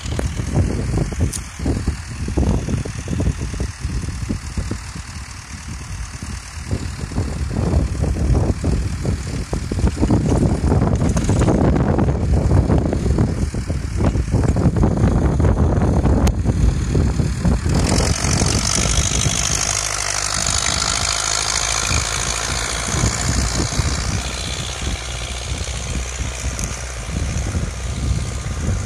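Zetor 5718 tractor's three-cylinder diesel engine working under load as it pulls a reversible plough through the soil, growing louder over the first dozen seconds as it comes close. A steady hiss joins the engine about two-thirds of the way through.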